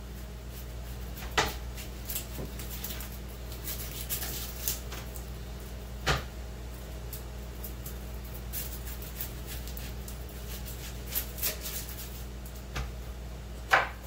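Kitchen knife cutting through a whole onion on a cutting board: a few sharp knocks as the blade meets the board, the loudest near the end, with fainter ticks between.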